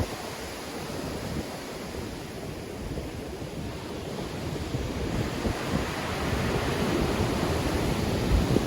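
Black Sea waves surging and breaking in a strong wind, with wind buffeting the microphone in low rumbling gusts. The surge eases just after the start and builds again toward the end.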